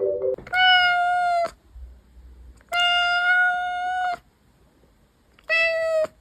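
A cat meowing three times in long drawn-out calls, each held at a level pitch; the last one is shorter.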